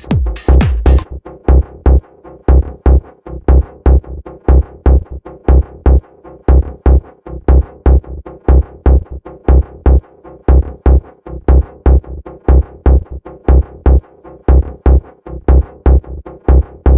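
Electronic house music: a kick drum on an even, steady beat under repeating synth chords. The bright hi-hat and cymbal strokes above it drop out about a second in, leaving the kick and chords.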